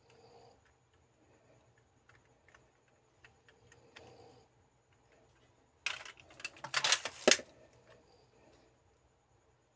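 Hard plastic Kyuranger Kyutama toy parts clicking and clattering in the hands as a Kyutama ball is swapped in its stand: light scattered clicks, then a quick run of louder clicks and clatter about six to seven and a half seconds in.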